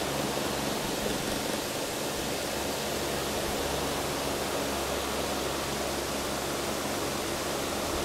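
Steady hiss over a low, even hum.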